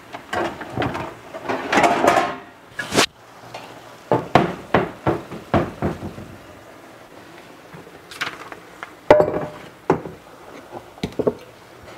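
Dishes clattering and knocking in a lower kitchen cabinet as a glass casserole dish is pulled out, with a rattle of shifting cookware about two seconds in and a string of sharp knocks. Near the end come clunks of glass on the countertop as the dish is set down.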